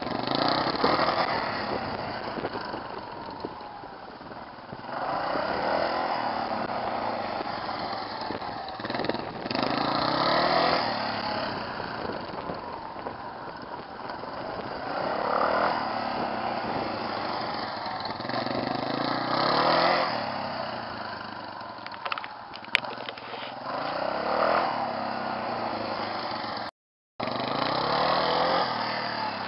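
Yamaha Serow XT225 single-cylinder trail bike engine running through repeated figure-eights, its revs rising and falling over and over. It swells louder about every four to five seconds and eases off between. The sound cuts out briefly near the end.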